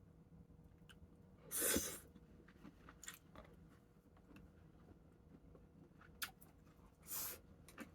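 A person eating a meal: scattered small clicks and taps of tableware, with two short, louder noisy bursts, one about a second and a half in and one near the end.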